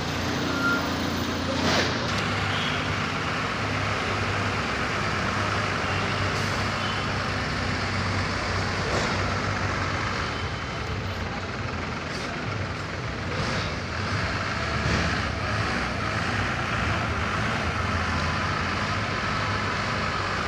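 Large truck engine idling steadily, a low hum under outdoor noise, with a few short knocks over it.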